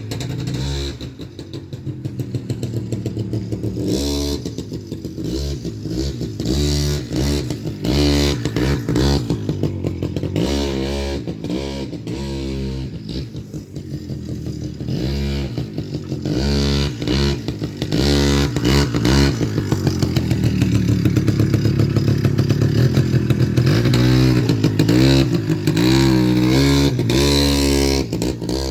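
Motorcycle engine revving up and falling back again and again as the bike is ridden for wheelies, then held at high revs for a long stretch in the second half.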